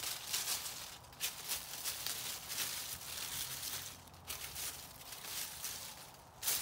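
Dry, frost-killed plant stems and leaves crackling and rustling as gloved hands pull them off a lattice trellis, in a run of bursts with short pauses about one second in, about four seconds in and near the end.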